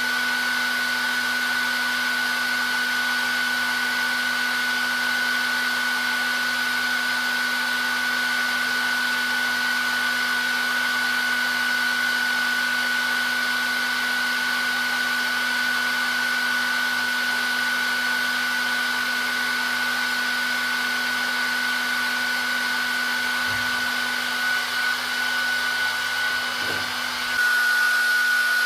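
Hair dryer running continuously: a steady rush of blown air with a high, even motor whine and a lower hum. About a second before the end the sound shifts, growing slightly louder with less low rumble.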